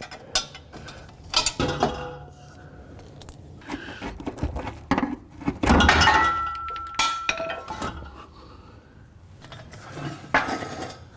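Metal clinks and clanks of wrenches and a loosened exhaust pipe section on a 2000 Acura Integra Type R being worked free and handled. The loudest clatter comes about halfway through and is followed by a brief ringing tone.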